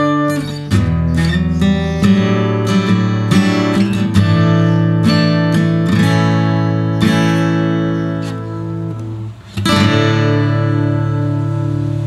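Cartesiuz SSDR-800 solid-top acoustic guitar played fingerstyle, a melody of plucked notes over ringing bass notes. About nine and a half seconds in, a final chord is struck and left to ring.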